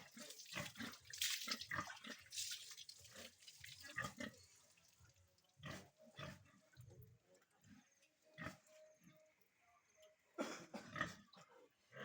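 Pigs grunting in short, irregular sounds.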